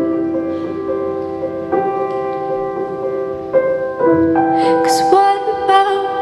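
Slow ballad music played over the stage speakers: held piano chords that change every second or two, and a voice singing again about five seconds in.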